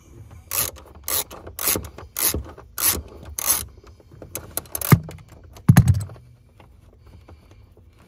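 Hand ratchet wrench with a 10 mm socket backing out a screw: about six quick strokes, each a short burst of pawl clicks, in the first few seconds. Then two knocks around five to six seconds in, and it goes quiet.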